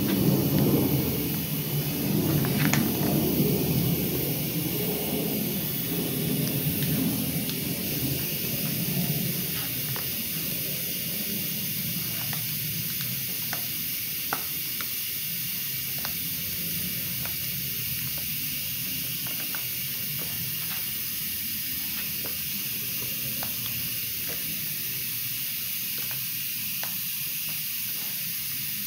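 Compressed air from a blow gun hissing, as air is forced between a handlebar grip and the bar to free it. A heavier rush fades away over the first ten seconds or so, leaving a steady high hiss with a few light clicks.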